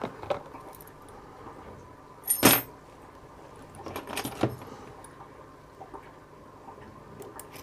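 Metal keys and a lock cylinder being handled: a few scattered clinks and rattles, the loudest a sharp, ringing metallic clink about two and a half seconds in, with another small cluster of clinks about four seconds in.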